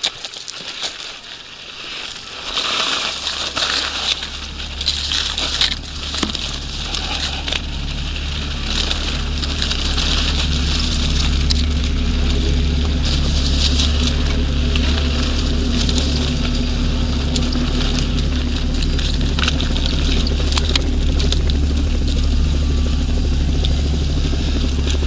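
Mountain bike rolling down a stony gravel trail: tyres crunching and rattling over loose stones, with many small clicks and knocks. A steady low rumble builds over the first several seconds and then holds as the bike gathers speed.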